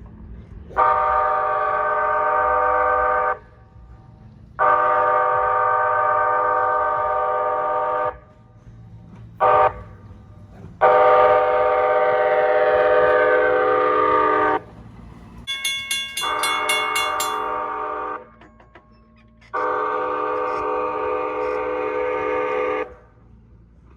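Horn of a Nippon Sharyo P865 light rail car sounding a series of steady blasts: long, long, short, long, the grade-crossing signal pattern. Two more long blasts follow, with a brief rapid high ringing at the start of the first of them.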